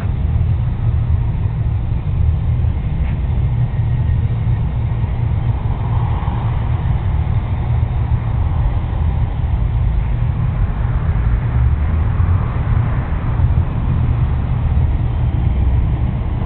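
Steady low rumble of road traffic from the street beside the camera, with a vehicle's sound swelling as it passes about six seconds in and again around twelve seconds.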